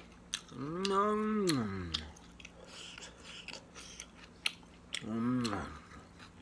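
Close-up eating sounds: wet chewing and lip-smacking clicks as a man eats rice and goat curry with his fingers from a steel plate. About half a second in, and again near five seconds, he gives a drawn-out hum whose pitch rises and then falls.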